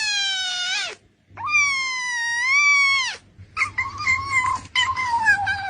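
A cat making long, drawn-out meows: three calls of about two seconds each, the last wavering and sliding down in pitch.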